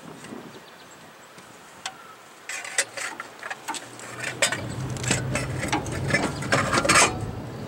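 Clunks, knocks and metal-on-metal scraping as a replacement starter motor is worked into its mount on the bellhousing of a slant-six engine. It starts about two and a half seconds in, grows busier and louder, and stops shortly before the end.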